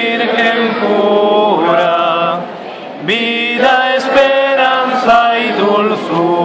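Voices singing a Rocío pilgrimage song, with sliding, ornamented notes held in long phrases and a short break about two and a half seconds in.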